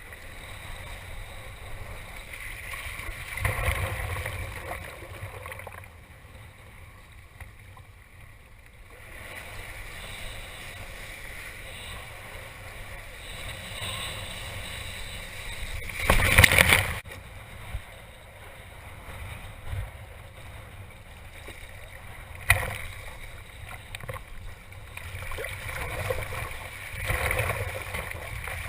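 Water rushing and splashing against a kitesurfing surfboard, swelling in surges, with a loud burst of noise about sixteen seconds in and a short sharp smack a few seconds later.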